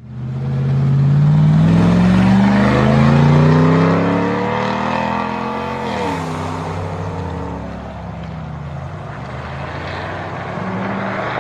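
Light van or pickup engine accelerating, its pitch rising steadily for about five seconds, then dropping sharply about six seconds in and running on lower and steadier, a little quieter.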